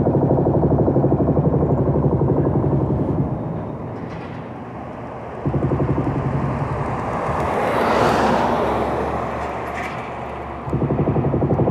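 Mantis concrete hammer pounding the concrete smokestack with rapid, steady blows. It stops about three seconds in, starts again a couple of seconds later, and pauses once more. A broad rushing noise rises and falls in the middle, peaking about eight seconds in, before the hammering resumes near the end.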